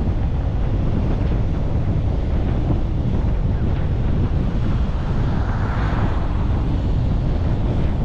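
Car driving, a steady low rumble of road noise with wind buffeting the microphone; a brief swell of higher hiss about six seconds in.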